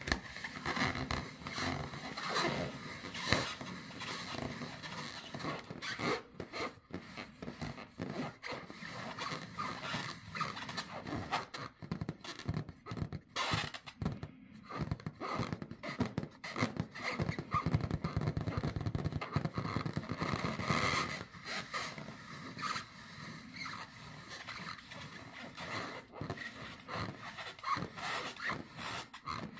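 Claws scratching at an inflated rubber balloon: dense, irregular scrapes and rubbing squeaks that go on throughout.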